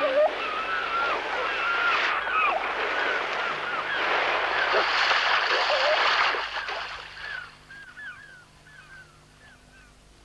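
Many birds calling in short, hooked cries over a steady rush of wind or water. The rush fades away about two thirds of the way through, leaving scattered calls.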